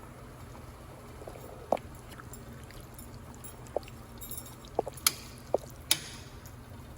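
Several short, sharp knocks and clinks of cookware, a utensil on the pot of meat sauce, spaced irregularly over a steady low hum.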